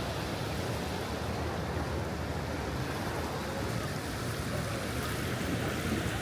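Ocean surf washing on the beach: a steady rushing noise.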